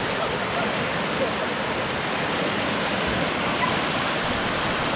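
River rapids: fast water rushing and splashing over rocks, heard from right at the water's surface as a steady, even noise.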